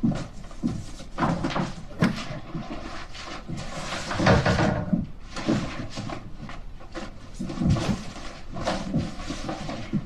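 Paper file folders and cardboard boxes being rummaged through and moved: irregular rustling, sliding and soft knocks of cardboard and paper, with a longer burst of rustling about four seconds in.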